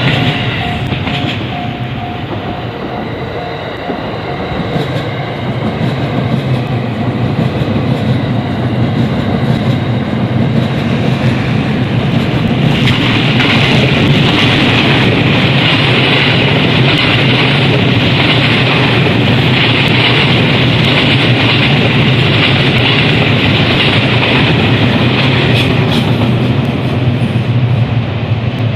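A train runs over a railway level crossing, with steady wheel and rail noise and a low rumble. It is loudest and hissiest through the middle of the passage, then eases near the end. In the first few seconds the crossing's warning bell rings as a repeating pulsed tone.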